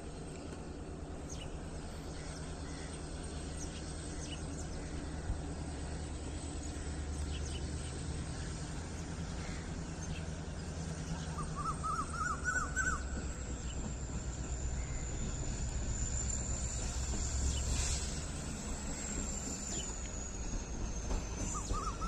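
Low, steady rumble of the still-distant approaching train's diesel locomotive, growing slightly louder. About halfway through and again at the very end, a bird gives a quick run of short rising chirps.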